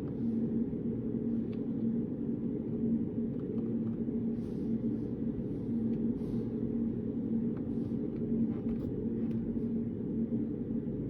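Steady low hum of a study room's background noise, with a faint steady tone in it. Soft scattered clicks and two brief rustles, about four and a half and six seconds in, sit on top of it.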